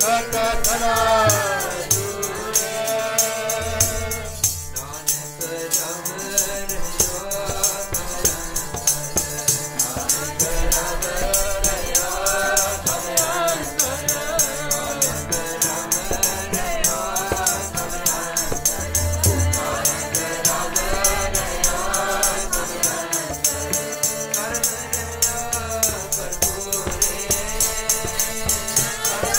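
Sikh keertan: voices singing a shabad to harmonium, over a steady fast jingling percussion beat.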